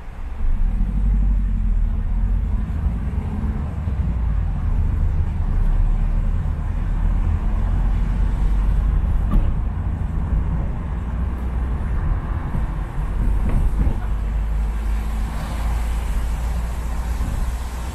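Car driving on a wet city road: a steady low rumble of engine and tyres with a hiss of wet road noise, growing a little louder about half a second in and slightly brighter near the end.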